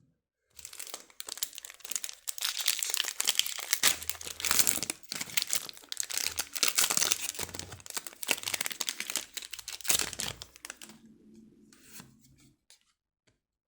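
Foil wrapper of a Pokémon card booster pack crinkling and tearing as it is opened and handled: a dense crackle that starts about half a second in and dies away near the end.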